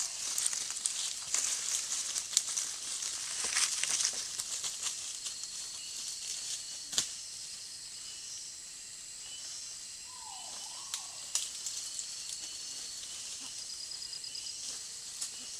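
Tropical forest ambience: steady high insect buzzing, with rustling and snapping of leaves and twigs from pig-tailed macaques moving through the undergrowth in the first few seconds, and a few sharp snaps later. About ten seconds in come two short calls falling in pitch.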